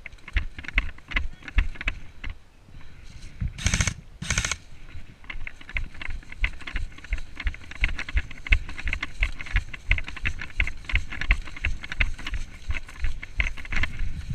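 Footsteps of a player walking over rough ground: a steady run of short knocks about two to three a second, with gear rattling and rustling. A little over three seconds in come two brief, loud rushing bursts about half a second apart.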